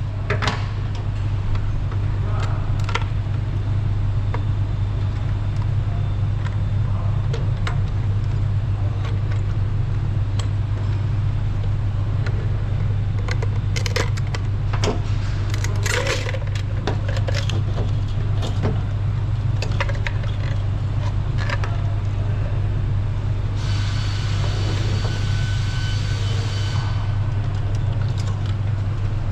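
Steady low hum under scattered metallic clicks and clinks of small parts and hand tools being handled. A higher-pitched whirring sound joins for about three seconds near the end.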